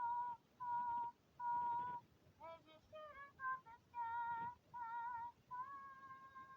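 A high-pitched voice singing a tune in short held notes, then one long held note near the end, with no clear words.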